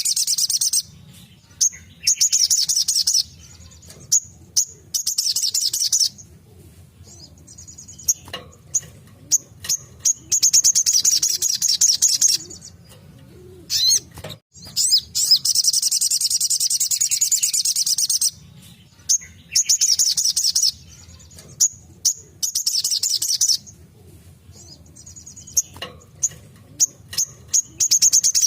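Sogok ontong (sogon) singing its rapid-fire 'tembakan' song: high, very fast trilled phrases lasting a few seconds each, repeated again and again with short chips in the gaps between them. A faint steady low hum lies underneath.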